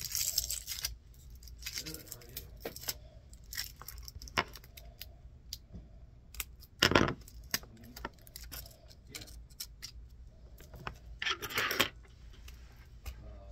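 Hands handling the stripped end of a shielded Cat 6 cable: rustling of the wires and shield, scattered small clicks and clinks, and one louder knock about seven seconds in.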